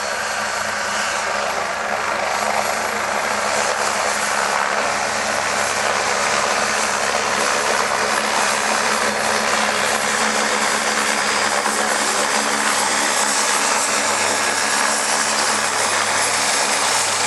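AgustaWestland AW109 twin-turbine helicopter running with its rotors turning as it taxis: a steady dense turbine and rotor hiss over a low hum, growing a little louder over the first few seconds, then holding level.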